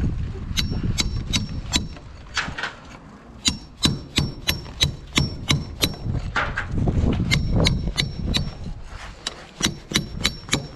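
Hammer blows chipping away at brick, a quick series of sharp strikes at about two to three a second, each with a short metallic ring.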